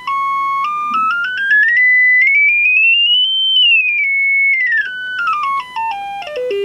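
Samsung UA40D6000 TV speaker playing a test tone from a signal generator. The tone climbs in steps from about 1 kHz to a peak near 3 kHz in the middle, then steps back down to a few hundred hertz. It is a frequency sweep to find where the blown speaker rattles.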